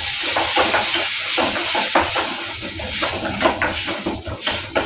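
Tomatoes sizzling as they fry in desi ghee in a stainless steel pan, with a metal spatula scraping and clinking against the pan again and again as they are stirred.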